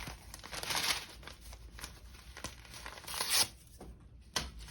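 A packet of strawberries-and-cream instant oatmeal being torn open and crinkled, in a few noisy rips with the loudest about three seconds in, and a sharp tap near the end.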